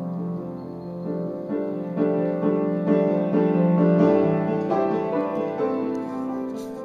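Background music played on piano, notes changing in steps.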